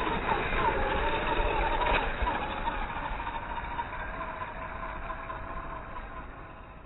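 Axial 27T brushed electric motor and gear train of a modified WLToys K949 RC crawler whining, its pitch rising and falling with the throttle for the first two seconds, then holding steady while fading away.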